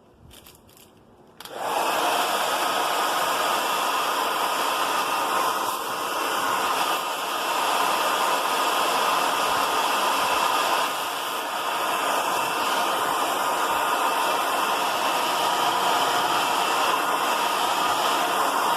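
A few faint handling clicks, then a hand-held blow dryer switched on about a second and a half in and running steadily, blowing hot air to shrink a plastic protective sleeve onto a TV remote.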